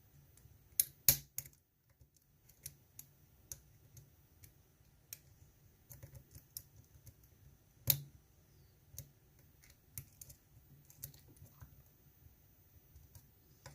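Small irregular metallic clicks and ticks of a lock pick working the pin stack of a GEGE euro cylinder under tension. A few louder clicks come about a second in and near the eight-second mark.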